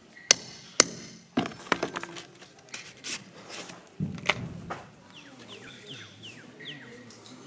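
Hammer blows on a metal rammer pin, packing firework composition into paper tubes: two sharp, ringing metallic strikes near the start, then several duller knocks and a heavier thud about four seconds in. In the second half, a bird chirps a quick run of short falling notes.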